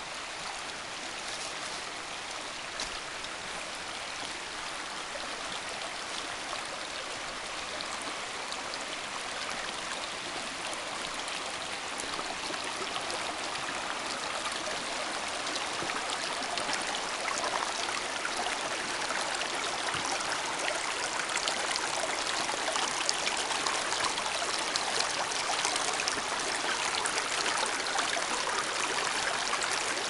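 A small woodland brook running over rocks: a steady rushing and trickling that grows gradually louder.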